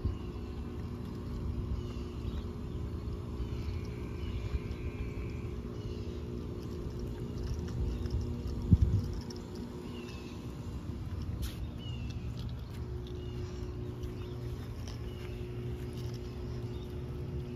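Outdoor background noise: a steady low rumble with a continuous mechanical hum and a few short high chirps. A single low thump about nine seconds in is the loudest moment.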